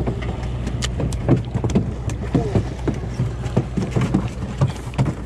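Boat engine running steadily under irregular knocks and splashes of water.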